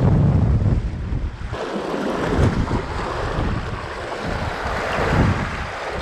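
Strong gale-force wind buffeting the microphone, with waves surging against the rocks. The wind rumble is heaviest in the first second and a half, giving way to a steadier hiss of wind and surf.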